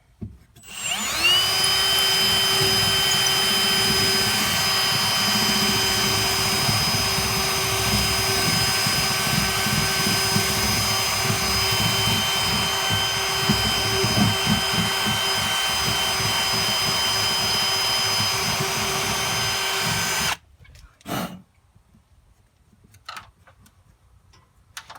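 Electric drill spinning up and running at a steady speed for about twenty seconds, drilling to enlarge a mounting hole a little, then stopping suddenly; a single knock follows.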